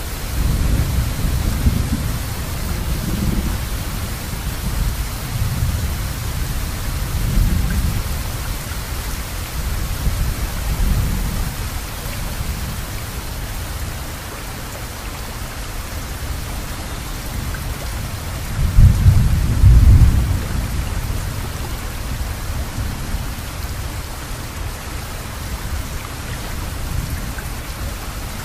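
Steady hiss of rain with low rumbles that swell and fade several times, the loudest about two-thirds of the way through.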